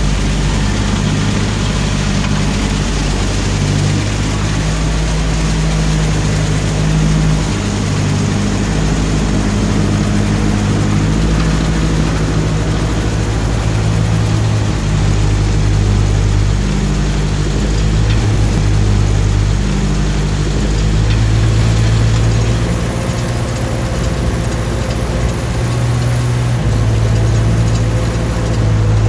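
1955 Ferguson TO35 tractor engine running steadily under load, driving a PTO snowblower that is throwing snow, with a steady rush of noise over the engine note.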